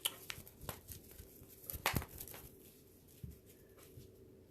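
A few brief, scattered soft clicks and rustles of handling, the clearest about two seconds in, over faint room hum.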